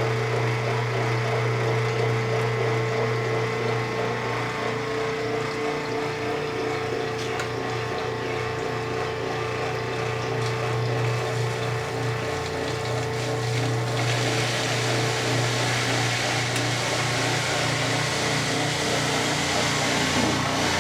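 1993 Kenmore 80 Series washer running in its neutral drain, its motor and drain pump giving a steady low growl. About two-thirds of the way through, a steady hiss rises over the hum.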